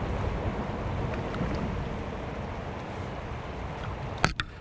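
Steady rush of shallow river water flowing over rocks, with wind buffeting the microphone. Near the end, two sharp clicks close together.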